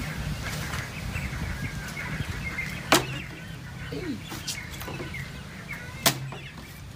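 A small plastic water bottle knocking down onto wooden floorboards twice, about three seconds apart, each a sharp knock with a short low thud. Birds chirp faintly in the background.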